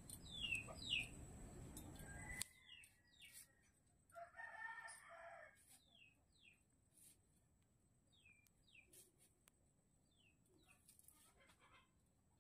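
A rooster crows once, about four seconds in. A small bird repeats a pair of quick falling chirps every couple of seconds, and there are a few faint clicks.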